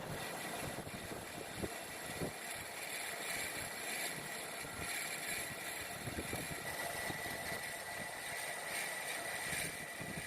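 A machine running steadily, with a constant thin whine and a few short knocks, the first two within about the first two and a half seconds.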